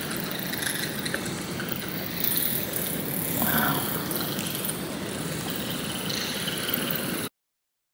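Steady hiss of a cave full of bats, with one short louder sound about three and a half seconds in. It cuts off abruptly near the end.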